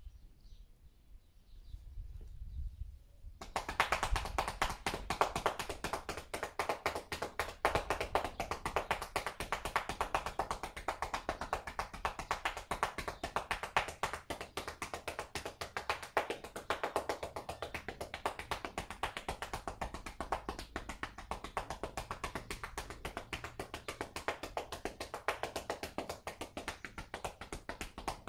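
Hands rapidly tapping and patting on a horse's back in a percussive massage, starting about three and a half seconds in and going on without a break.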